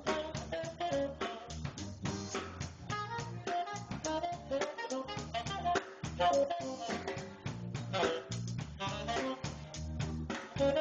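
Live jazz band: a saxophone plays a melody over a drum kit, with low bass notes underneath.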